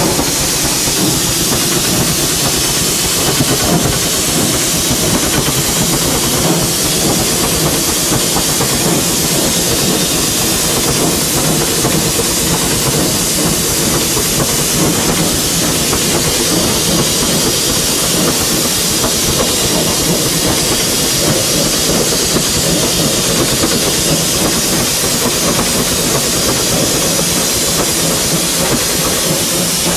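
Steam locomotive running, heard from inside its cab: a steady mix of steam hiss and wheel and rail noise.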